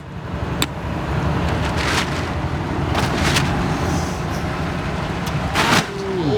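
An engine running with a steady low drone, with a couple of sharp clicks near the start and a few short scraping noises.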